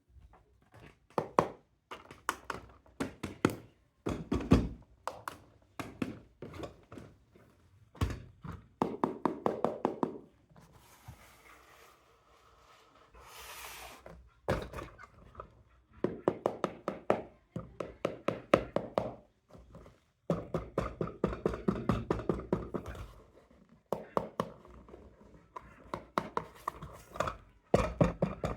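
Hard plastic toy construction vehicles clattering and knocking, in quick runs of clicks and thuds with short pauses between, and a brief whir about halfway through.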